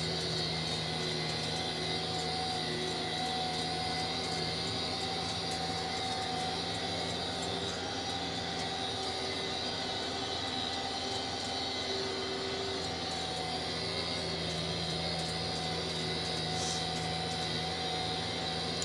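Tractor running at a steady engine speed while pulling a tedder through grass, a constant drone with a few fixed pitched tones and no change in revs.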